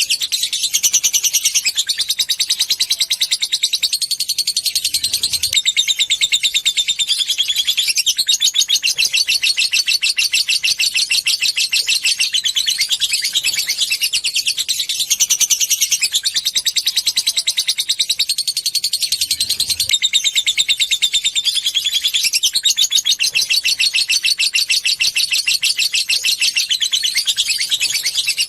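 Lovebird chattering in a long, unbroken, very rapid high-pitched trill, the 'ngekek panjang' song, with the phrasing shifting every few seconds.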